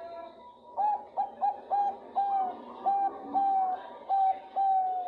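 Female zebra dove (perkutut bangkok) calling a male: a run of about nine clear cooing notes starting about a second in, short and quick at first, then longer and more spaced out, each dipping slightly in pitch at its end.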